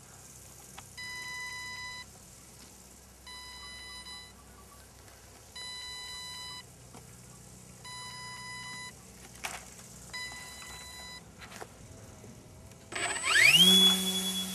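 RC model glider: electronic beeps, each about a second long, repeat five times about two seconds apart. Near the end, as the glider is hand-launched, a loud whine rises quickly and then holds one steady high pitch, typical of an electric motor spinning up to full throttle.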